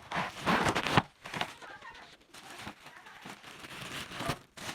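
Plastic and cardboard packaging crinkling and rustling as a keyboard is pulled out of its box, loudest in the first second, with a few sharp clicks.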